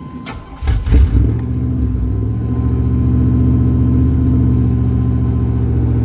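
1998 Chevy K1500's 5.7-litre V8 starting about a second in, then running at a fast idle. The high idle after start-up is part of the truck's rough-idle and stalling fault.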